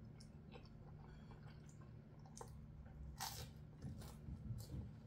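A person chewing a mouthful of cheese-topped baked bread, faint, with small wet mouth clicks. A short breathy rush of air comes about three seconds in.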